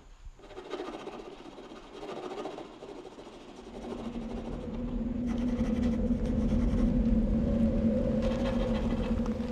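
A low, steady hum with two held tones swells in about four seconds in and holds until it stops at the end, over a softer scratchy rustle at the start.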